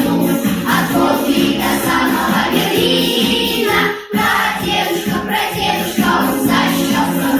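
A children's choir singing a song in unison over an instrumental backing track, with a brief break about halfway through.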